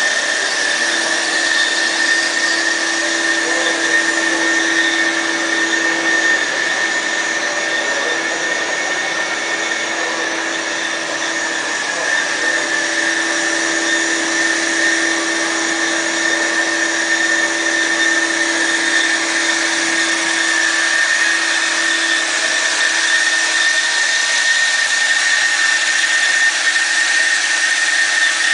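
Metal-cutting band saw machine running steadily, a constant high whine over a lower hum.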